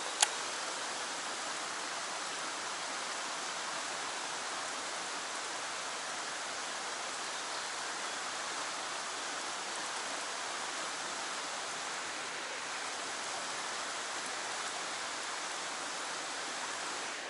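Fast water rushing out of a tunnel outflow and down a narrow rock-walled channel, a steady hiss. A single sharp click just after the start.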